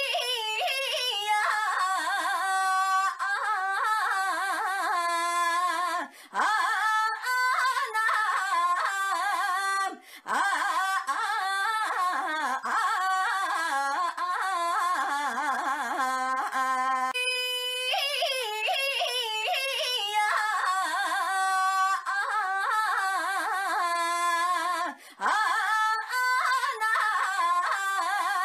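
A young woman's high-pitched, drawn-out cutesy cry of "ainyaaa", her voice wavering up and down in pitch almost like yodeling. The same cry repeats as a loop about every 19 seconds.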